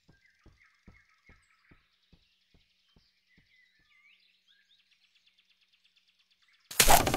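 Faint birds chirping in forest ambience, with soft low ticks that come further apart and fade away. Near the end comes a sudden loud burst of noise lasting under a second.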